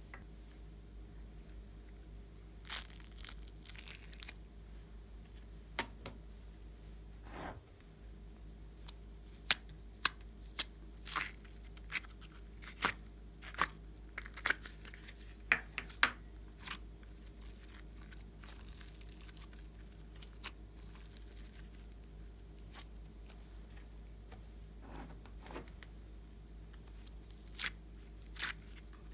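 Slime being squeezed by hand out of thin clear plastic rainbow-shaped containers: irregular sharp crackles and clicks from the flexing plastic and the sticky slime, over a steady low hum.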